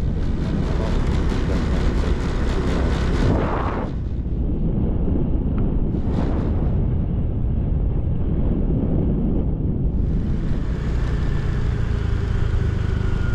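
Steady wind rush on the microphone over the engine and tyre noise of a moving motorcycle, with two brief swells about three and six seconds in.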